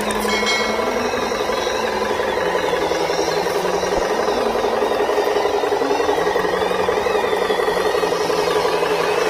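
Radio-controlled scale model truck running, a steady rapid mechanical buzz and rattle from its drive.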